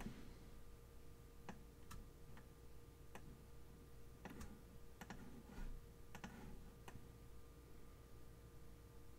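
Faint computer mouse clicks, about a dozen at irregular intervals, mostly in the first seven seconds, over a faint steady hum.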